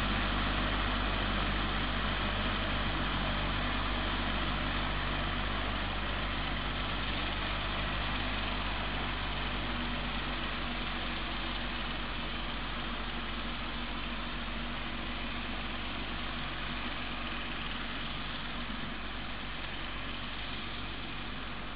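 Wheel Horse garden tractor engine running steadily, slowly fading as the tractor moves away.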